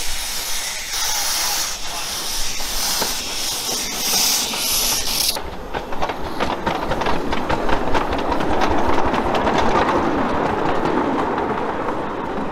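Miniature live-steam locomotive starting away with its cylinder drain cocks open: a loud, pulsing hiss of steam that cuts off suddenly about five seconds in. Then the wheels click quickly over the rail joints and pointwork as the locomotive and its passenger cars rumble past.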